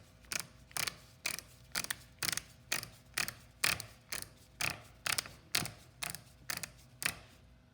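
Click-type torque wrench being adjusted, its handle ratcheting through the setting scale in even clicks about two a second, as it is set toward 140 N·m for wheel nuts.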